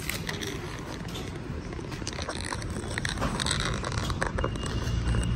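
Street traffic noise of a busy city street, with a low rumble building near the end.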